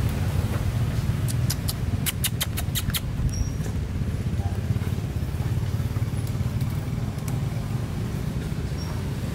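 A steady low rumble throughout. A quick run of about nine sharp clicks comes a little over a second in, and three brief high chirps are spread across the rest.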